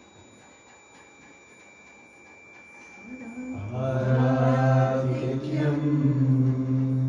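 A long-held chanted "Om" in a low male voice. It swells up about three seconds in and is held on one steady pitch, the open vowel closing to a hummed "mmm" about halfway through.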